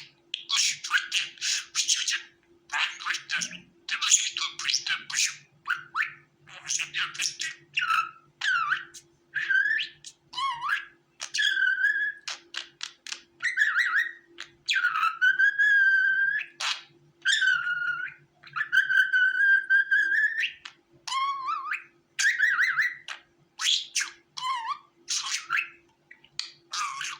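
Budgerigar chattering and warbling: rapid short chirps and scratchy notes, with a few longer whistled notes in the middle.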